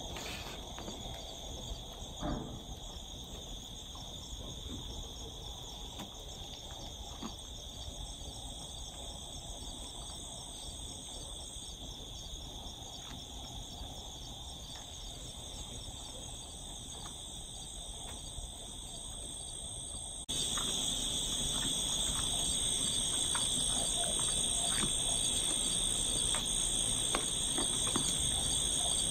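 Outdoor insect chorus, a steady high-pitched buzzing with faint rustles underneath. It suddenly becomes louder about twenty seconds in.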